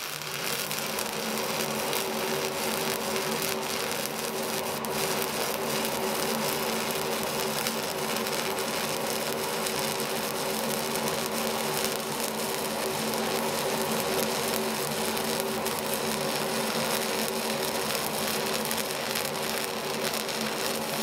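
MIG welding arc crackling steadily, over the steady hum of a DIY fume extractor fan pulling air and fumes into a flexible aluminium duct.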